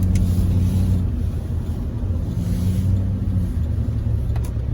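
A Chevrolet Tahoe Z71 driving on a snowy road, heard from inside the cabin: a steady low rumble of engine and tyre noise, with a faint hum that fades in and out.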